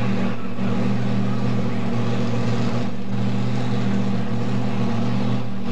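Mini modified pulling tractor's engine running loudly at a steady speed while hooked to the sled, waiting to launch, with three short dips in its sound.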